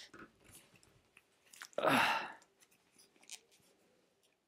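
Small clicks and creaks of a plastic Masters of the Universe Origins Hordak action figure's joints as it is handled and bent into a pose, with one louder, breathy rush of noise about two seconds in.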